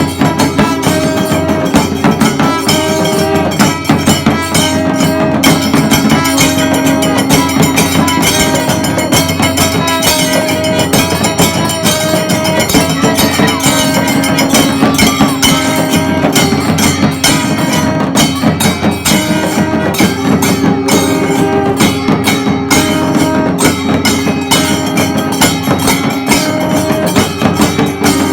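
Kailaya vathiyam temple ensemble playing: fast, dense drumming and clashing cymbals, with horns holding long notes over them in a repeating pattern.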